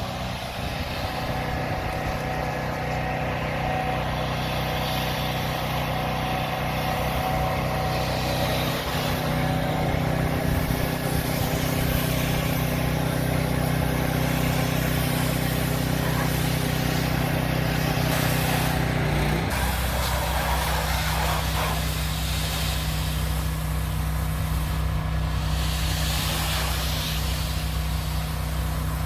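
Predator 4400 PSI gas pressure washer's engine running steadily under the hiss of water spraying from the wand. About two-thirds of the way through, the engine note drops to a lower pitch and runs on there.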